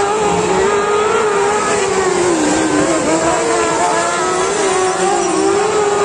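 Racing car engines running hard on a dirt circuit, their note rising and falling as the cars accelerate and lift through the bends.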